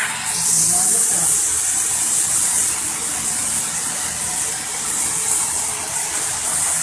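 A steady, loud high hiss that starts suddenly just after the beginning.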